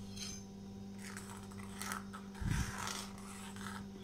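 Metal spoon scraping and clinking against a metal pan in several short strokes while stirring a simmering liquid, over a steady low hum. A dull thump sounds about two and a half seconds in.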